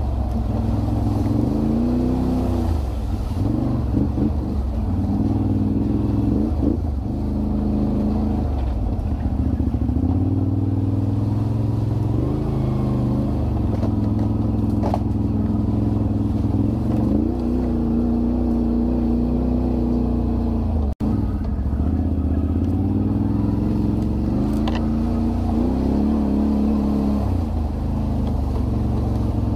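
Can-Am Renegade 1000 ATV's V-twin engine running on the move, its pitch rising and falling again and again as the throttle opens and eases. The sound drops out for an instant about two-thirds of the way through.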